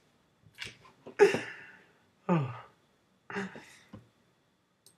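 A young man's short breathy gasps and sighs, about four of them roughly a second apart, some falling in pitch, as his laughter dies down.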